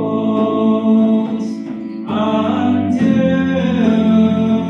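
A group singing a slow, meditative song in English, holding long notes, with a change of note about two seconds in.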